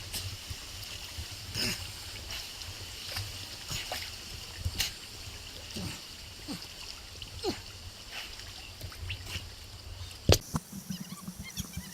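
Steady rush of waterfall water with scattered splashes and clicks. A sharp, loud knock comes about ten seconds in.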